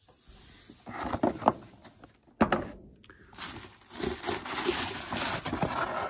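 An action-figure box and its packaging being handled and opened: irregular rustling and scraping with a few sharp clicks, then steadier rustling in the second half.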